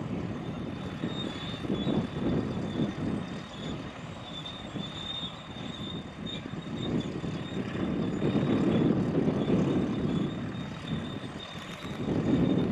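Outdoor engine noise that swells louder about eight seconds in and again near the end.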